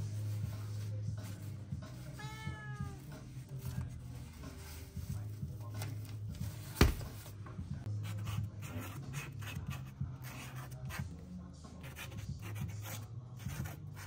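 A cat meows once about two seconds in, and a single sharp click stands out near the middle. From about eight seconds on, a paint marker scratches in short strokes across nylon fabric as letters are written.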